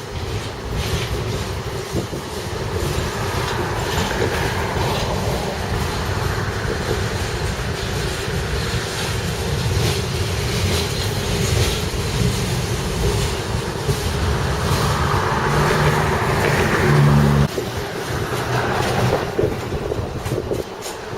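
Union Pacific train rolling past with a steady rumble of wheels on rails. About fifteen seconds in, a low droning tone joins it and cuts off suddenly a couple of seconds later.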